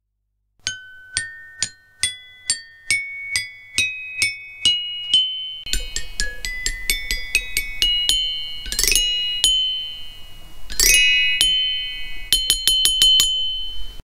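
Closing jingle: bright, bell-like single notes struck about twice a second, climbing step by step in pitch. From about six seconds in a fuller accompaniment with a low bass comes in, with two short noisy percussion hits, and the music stops just before the end.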